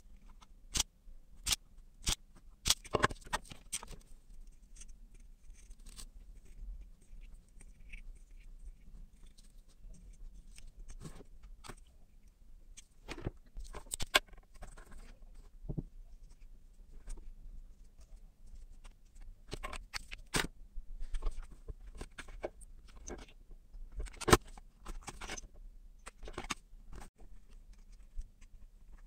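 Workbench handling noises: sharp clicks and snaps, several close together in the first few seconds as a self-adjusting wire stripper grips and cuts wire. Scattered clicks and light scraping follow as wires, connectors and a clear plastic enclosure are handled.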